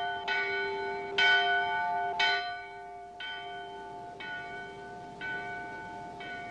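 A church bell tolling slowly, about one stroke a second, each stroke ringing on into the next. The strokes in the first couple of seconds are the loudest; the later ones are softer.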